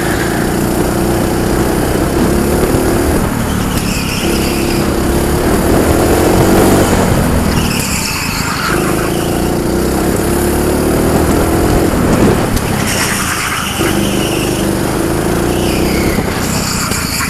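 Go-kart engine running hard on the lap, its steady note dipping four times as it comes off the power for corners, with brief tyre squeals in those corners.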